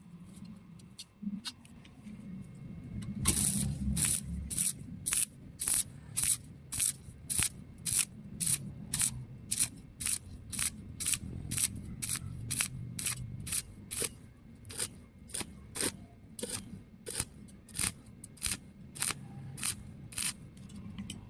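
Welding arc on thin steel struck and broken over and over, about two short crackling bursts a second: a stitch (on-off) technique for a horizontal fillet weld that keeps thin metal from burning through. Faint low hum and light handling noises come before the first strike, about three seconds in.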